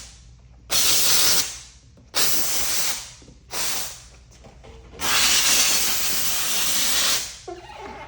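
Four loud hissing bursts, as of a spray or air jet, about a second apart; the last lasts about two seconds.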